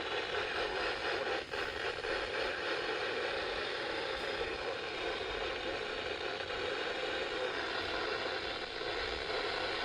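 Weather radio receiver hiss: a steady band of static between broadcast messages, with a brief crackle about a second and a half in.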